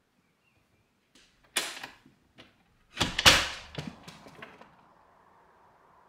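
A handful of short knocks and clatters, the loudest about three seconds in, trailing off into a faint steady noise.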